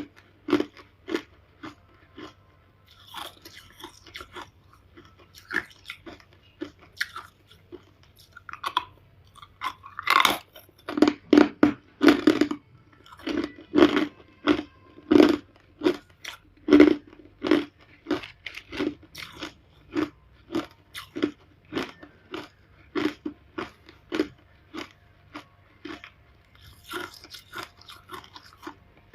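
Close-miked crunching of ice being bitten and chewed: a quick, uneven run of sharp crunches, with a louder burst of them about a third of the way in.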